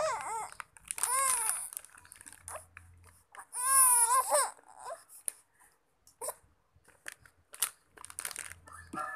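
A baby crying in three loud wails within the first five seconds, each rising and falling in pitch. Short scattered crackles of a plastic snack packet being handled follow.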